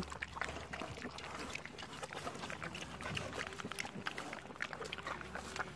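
A mini piglet eating watermelon flesh, smacking and chewing wetly in a quick, irregular run of small clicks.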